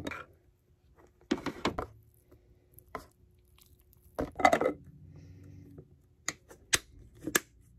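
Plastic snap-lock lid handled and lifted off a glass food container, then a plastic fork scraping and tipping pasta out of the glass dish into a paper bowl. Scattered knocks and clatter, the loudest about four seconds in, and a few sharp clicks near the end.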